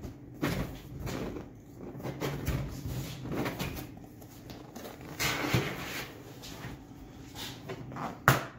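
Large corrugated plastic sheet being handled and bent open along a scored line, with irregular rustles and flexing crackles. A single sharp knock comes near the end.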